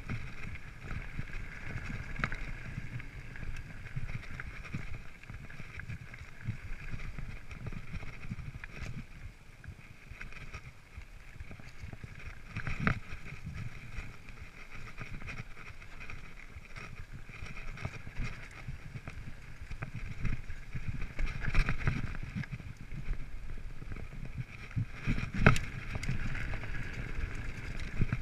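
Mountain bike ridden over a dirt singletrack: a steady rumble of tyres and rattling frame over the rough ground, with a few sharp knocks as it hits bumps, one about halfway and two more near the end.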